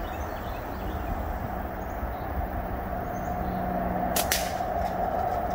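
A slingshot's flat bands (Snipersling .5) are released in a shot, giving a sharp double snap about four seconds in, over a steady background hum.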